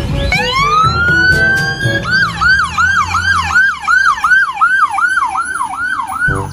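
Ambulance siren responding on a call. About a third of a second in, it starts a rising wail that climbs for nearly two seconds, then switches to a fast yelp of about three up-and-down sweeps a second.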